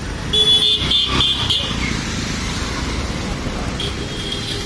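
Street traffic with vehicle engines running. A high, shrill tone sounds about a third of a second in for over a second, and again near the end.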